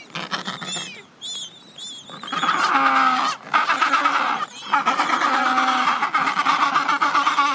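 Adelie penguins calling in their colony: a few short high chirps about a second in, then a loud, long, rapidly pulsed call, broken twice by short pauses.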